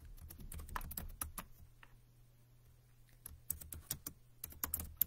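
Typing on a computer keyboard: quick runs of key clicks, a pause in the middle, then more bursts of typing near the end.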